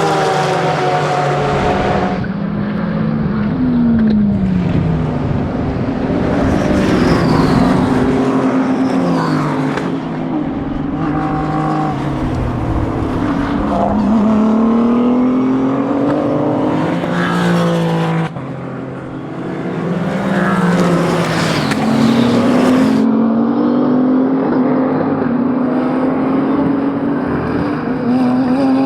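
Racing car engines on track, revving up through the gears and dropping back on downshifts as cars accelerate and pass. The sound changes abruptly every few seconds, with one short dip in loudness at about 18 seconds in.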